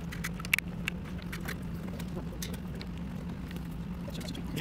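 Small clicks and taps of a disassembled portable hard drive's metal enclosure and circuit board being handled on a table. A cluster of them comes in the first second and a half, the sharpest about half a second in, and a few more come near the end, all over a steady low hum.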